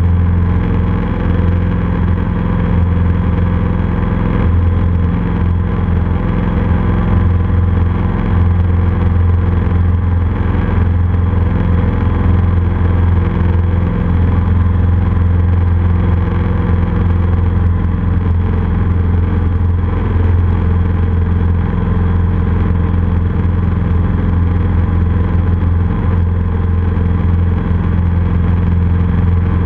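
Cessna F150L's four-cylinder Continental O-200 engine and propeller running steadily in flight, a constant low drone with no change in pitch.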